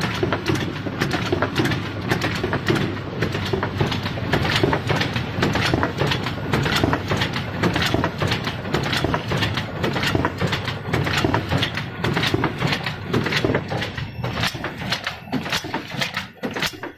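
Automatic folder-gluer with a double-sided tape applicator running as corrugated box blanks feed through: a steady machine hum under rapid, continuous clattering.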